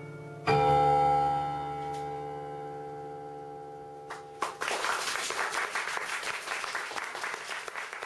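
The song's last chord is struck and rings out, fading slowly, then stops short about four seconds in; the audience then breaks into applause.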